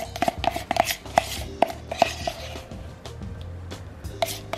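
A metal spoon scraping and knocking against a plastic sour cream tub as the last of the sour cream is dug out. It makes a quick, uneven series of sharp clicks and taps, thinning out past the middle and picking up again near the end.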